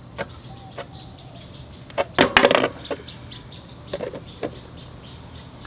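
Clear plastic bag crinkling and rustling in short bursts as it is held under the scooter's transmission drain bolt to catch draining gear oil, loudest about two seconds in, with a few small clicks from handling.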